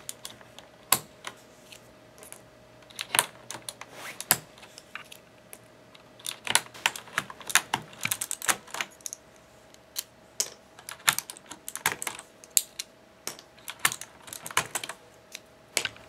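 Plastic keycaps being pulled off the Cherry MX switches of a CM Storm Quickfire TK mechanical keyboard with a plastic keycap puller. Irregular sharp clicks and clacks, some single and some in quick clusters, as the caps snap free.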